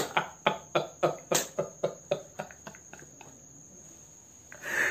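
A man laughing hard in quick pulses, about four a second, fading away over about three seconds.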